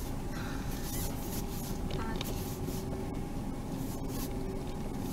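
Steady, low engine and road rumble inside the cabin of a small Toyota car being driven.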